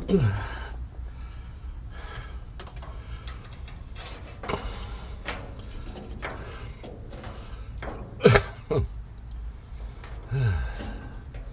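Small clicks, rustles and knocks of a hand handling a rubber fuel line and its fitting at the top of a fuel tank, over a low steady hum. A few short grunts of effort come at the start, twice a little after eight seconds (the loudest moment), and again near the end.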